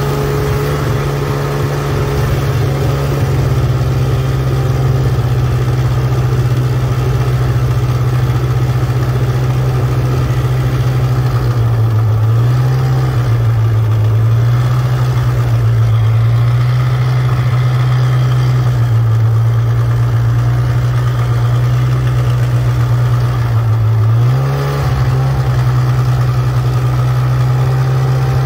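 Snowmobile engine running at low speed while towing a snow tube, its pitch rising and falling a few times as the throttle is eased on and off.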